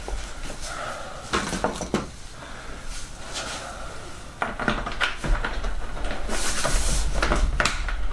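Hands working the foam wing of an RC plane onto its fuselage: several light plastic clicks and knocks, with a longer scraping rustle about six and a half seconds in.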